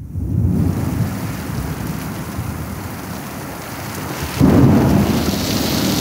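Heavy rain pouring down with a low rumble of thunder, starting suddenly and surging louder about four and a half seconds in.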